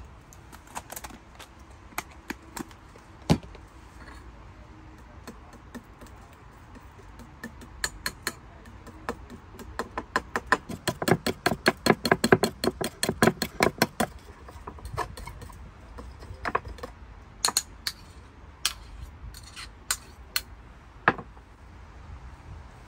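A utensil beating against a bowl: a fast, even run of clicks, about six a second, from about eight to fourteen seconds in, as a sauce is mixed, with scattered single clicks and knocks before and after.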